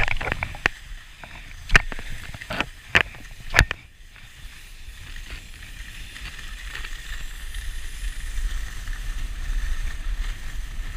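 Skis running over packed, groomed snow with wind rumbling on the microphone, getting steadily louder as the skier gathers speed after about four seconds. In the first few seconds, before the run gets going, there are several sharp knocks and clicks.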